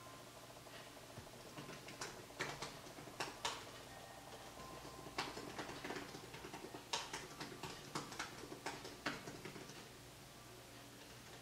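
Typing on a MacBook laptop keyboard: irregular key clicks in short runs, stopping about a second before the end.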